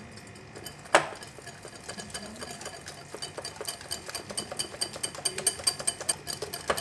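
Wire balloon whisk beating thick tempura batter in a glass bowl: a fast, even run of light clicks and scrapes as the wires hit the glass, with one sharper knock about a second in.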